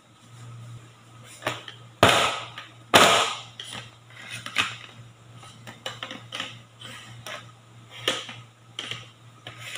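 Small metal baking tins knocking and scraping on a metal baking tray as they are shifted about: a string of sharp knocks and clatters, the two loudest about two and three seconds in.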